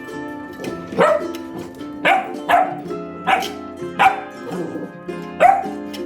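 A dog barking about six times, single sharp barks roughly a second apart, over steady background music.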